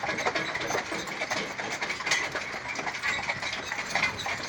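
Horse-drawn carriage rolling along behind its two-horse team of a Haflinger and an Appaloosa: hooves clip-clopping amid a steady rattle and clatter of the carriage and harness.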